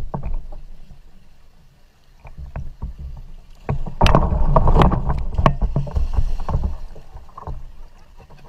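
Water splashing and sloshing around a kayak on a river, with short knocks of the paddle and gear against the plastic hull; it gets much louder and busier about four seconds in, then eases off.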